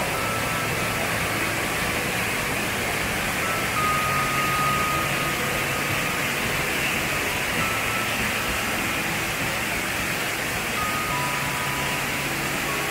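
A powerful waterfall where a river resurgence gushes out of the rock and pours over boulders: a steady, loud rushing of water.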